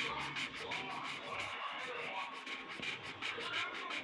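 Felt-tip sketch pen scribbling on paper in quick back-and-forth strokes, several a second, with faint music in the background.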